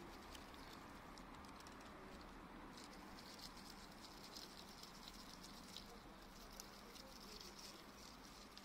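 Near silence: faint outdoor ambience with scattered light ticks and a faint high hiss that comes and goes.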